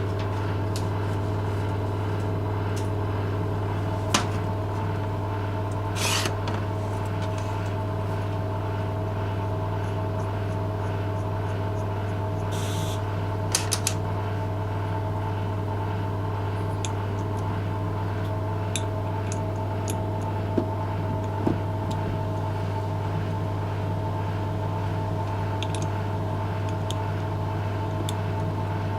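Steady mechanical hum from a running motor, with a few light clicks and knocks scattered through it.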